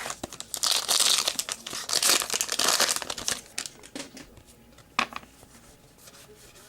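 Foil wrapper of a trading-card pack crinkling loudly as it is opened and handled for about three seconds, then a few light clicks and one sharp tap about five seconds in.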